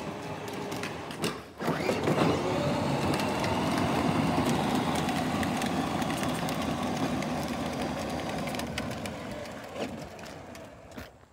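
Battery-powered ride-on toy dump truck driving on concrete: a steady electric motor and gearbox whine with its hard plastic wheels rumbling on the concrete. It cuts out briefly about a second and a half in, then runs on and fades away near the end.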